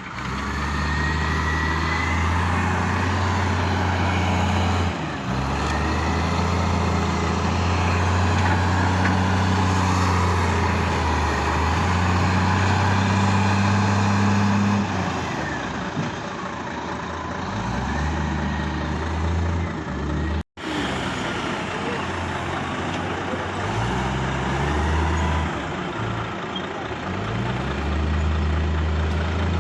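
Heavy diesel machinery working: a deep engine note that rises and falls in steps as the load changes, with thin whining glides above it and a brief break about two-thirds of the way through.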